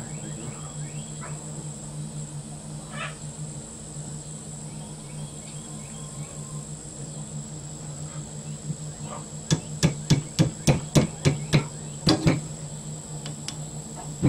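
Small hammer tapping a metal pin into a sword's handle: a run of about a dozen sharp taps, about four a second, starting about two-thirds of the way in, with a brief break before the last few.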